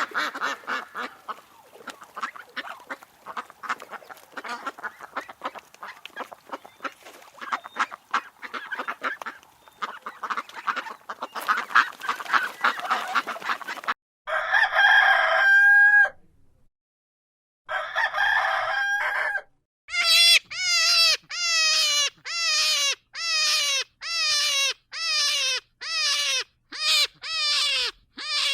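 Domestic fowl calling. For the first half a flock chatters with many overlapping short calls. Then come two long rooster crows, each ending on a held note, followed by a run of about nine short falling calls, one a second.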